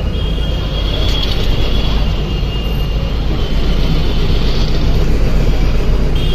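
Bus running through town, heard from inside the cabin: a loud steady low rumble of engine and road noise, with a thin high-pitched squeal that comes and goes a few times.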